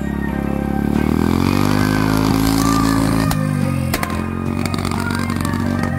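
Harley-Davidson chopper's V-twin engine under way: the revs climb for about two seconds, hold, and drop back, then the engine runs lower and steadier, with a few sharp clicks.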